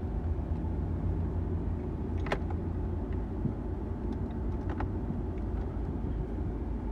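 Steady low rumble of the Mahindra Scorpio's engine idling, heard inside the cabin, with a single sharp click about two seconds in.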